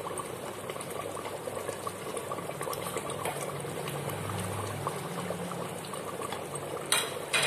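Thick nihari gravy bubbling steadily at a boil in an open pressure cooker, a continuous fine bubbling and crackle. Near the end a short, louder clatter as a spoonful of fried onions goes in.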